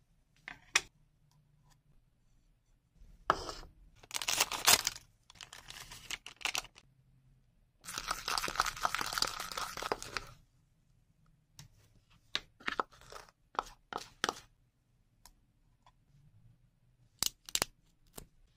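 Close-up handling sounds from a DIY candy kit. Short rustling bursts come first, then a spoon scrapes and stirs batter in a small bowl for a couple of seconds, followed by scattered light clicks. Near the end a foil sachet is torn open with a couple of sharp rips.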